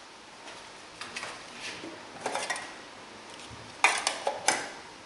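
A square metal camping cookpot and its lid clinking and knocking as they are handled: a few light clinks, then a cluster of louder clanks near the end.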